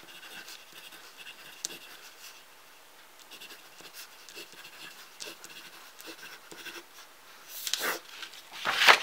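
Knife-sharpened graphite pencil writing on a sheet of paper: faint, short scratching strokes as letters are formed. Near the end come two louder, longer swishes of pencil and paper.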